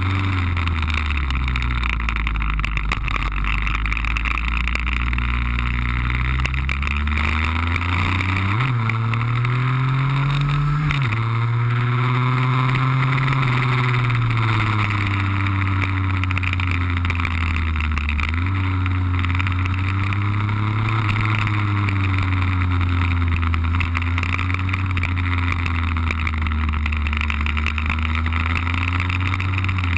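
Two-stroke engine of a Lambretta cut-down scooter with an RB20 engine, heard from onboard under way. The engine note rises and falls with the throttle and gears, climbing from about eight seconds in and dropping sharply about eleven seconds in, over a steady rushing noise.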